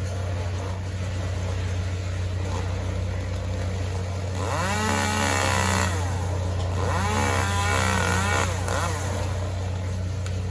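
An engine running steadily, revved up and down twice.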